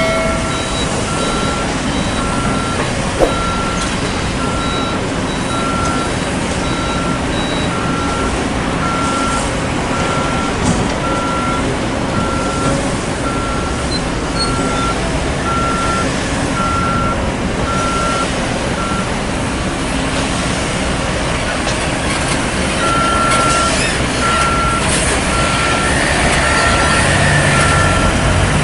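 Reversing alarm on a heavy dump truck beeping steadily, about three beeps every two seconds, over the running of truck engines and earthmoving machinery. The beeping stops about two-thirds of the way through and starts again for a few seconds near the end, as an engine grows louder.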